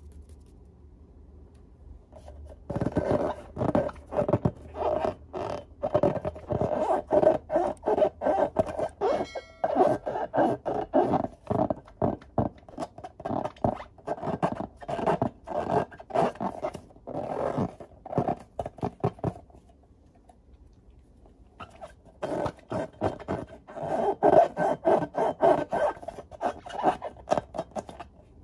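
Hands rubbing and squeezing filled latex balloons, the rubber squeaking and scraping in quick repeated strokes. It starts a couple of seconds in, breaks off briefly about two-thirds of the way through, then starts again.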